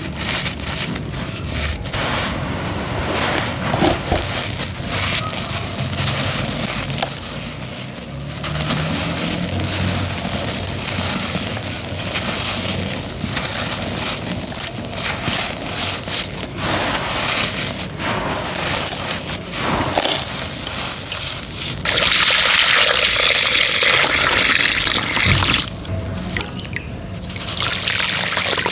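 Wet cement being crushed and crumbled: a continuous gritty, crackling crunch with a watery, trickling edge. It turns louder and denser for a few seconds about three-quarters of the way in.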